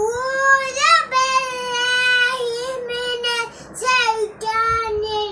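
A young boy chanting Quran recitation in a high voice, in a few long, drawn-out melodic phrases with short breaths between them.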